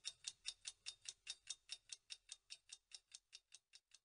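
A clock ticking, quick and faint at about five ticks a second, growing fainter toward the end.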